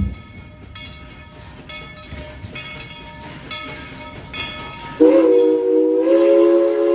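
Narrow-gauge steam locomotive's bell ringing about once a second, then, about five seconds in, its chime whistle blows loud and long: a chord of several notes that steps up slightly in pitch a second after it starts.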